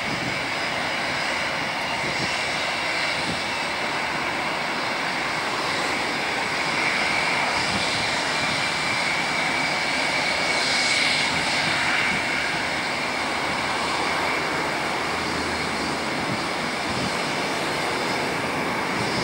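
Jet engines of a Vueling Airbus A320-family airliner running at taxi power: a steady rushing noise with a constant high whine, swelling slightly about halfway through as the aircraft passes nearest.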